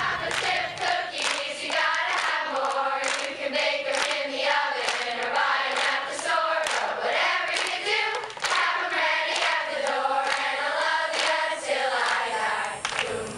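A large group of girls singing a catchy song together in unison, with hand claps keeping the beat.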